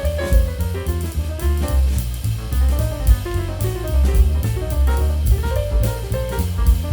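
Background music: an upbeat jazz-style track with drum kit, bass and melodic instruments.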